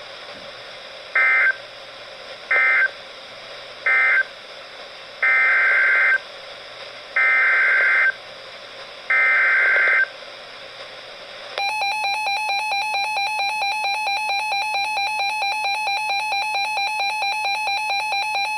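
NOAA weather radio sending Emergency Alert System data bursts: three short end-of-message bursts of warbling digital tones, then three longer header bursts announcing the next severe thunderstorm warning. About eleven seconds in, the steady two-tone EAS attention signal starts and carries on.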